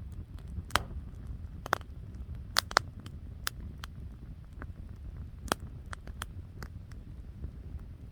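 Campfire crackling: irregular sharp pops and cracks, the loudest in the first three seconds, over a steady low rumble.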